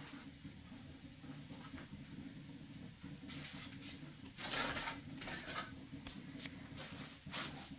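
Steel trowel scraping wet cement mortar onto the top edge of a concrete-block counter base in short, uneven strokes. The loudest stroke comes about halfway through.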